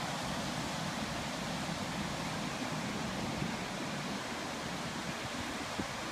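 Ocean surf breaking on a sandy beach, a steady wash of noise, with wind buffeting the microphone.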